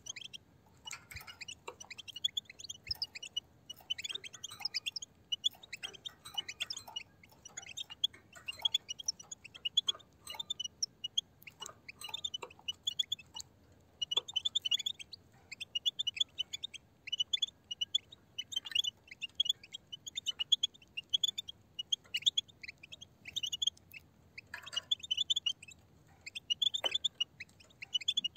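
A flock of European goldfinches twittering: dense, rapid runs of short, high chirps, broken by a couple of brief pauses.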